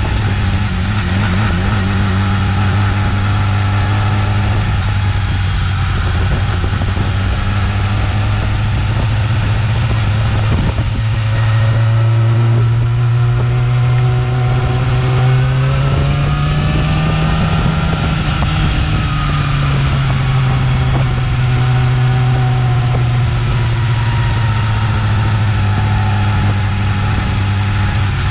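Yamaha R6's inline-four engine running through its stock exhaust, a steady note that rises gradually about halfway through, peaks a few seconds later, then settles back down.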